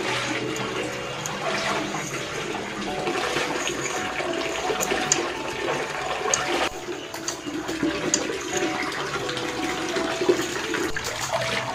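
Tap water running and splashing into a plastic basin while leafy greens are swished and lifted in the water by hand.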